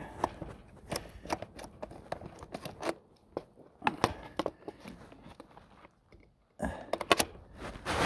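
Scattered clicks, knocks and light rattles of hands working a Ryobi 40-volt chainsaw's plastic body, bar and chain while turning the chain-tension adjuster, with a louder cluster of knocks near the end.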